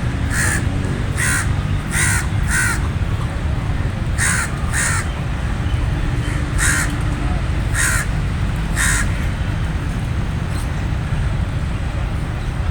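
A crow cawing: about nine short, harsh caws, some in quick pairs, over the first nine seconds, with a steady low rumble underneath.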